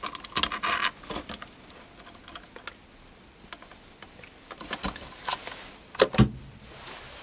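Small metal clicks and light knocks as steel clamps and T-bolts are handled and adjusted on a milling pallet made from a lathe cross-slide, with two heavier knocks about six seconds in.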